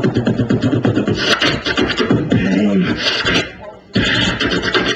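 A person beatboxing a fast drum-and-bass beat: rapid mouth kicks, snares and hissing hi-hats, with a hummed low vocal line in the middle. The beat drops out briefly about three and a half seconds in, then starts again.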